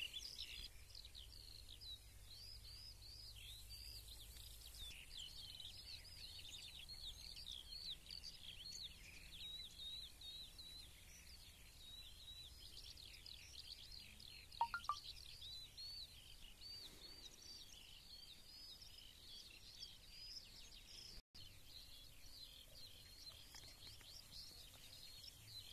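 Many small birds singing faintly and continuously, a dense chorus of quick chirps and twittering trills, with one brief sharp click about 15 seconds in.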